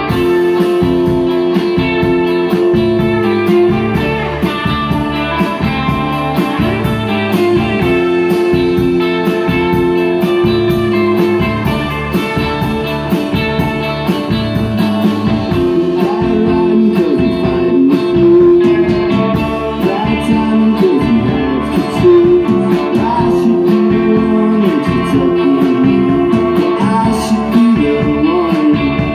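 Live rock band playing at full volume: two electric guitars over bass and a drum kit, with a steady beat.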